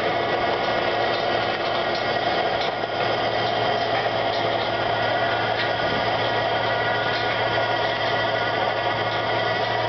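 Tractor engine running steadily under load, driving a Maschio DM 4000 rotary power harrow that is tilling the soil; a steady drone with faint high whines over it.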